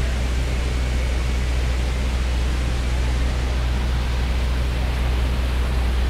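Steady city street ambience: a continuous wash of noise over a constant low rumble, with no single event standing out.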